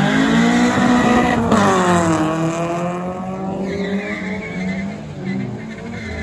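Two Honda Civics launching hard off a drag-strip start line, engines revving up with a shift about a second and a half in, then fading as they pull away. Near the end a tyre squeal rises from the next car's burnout.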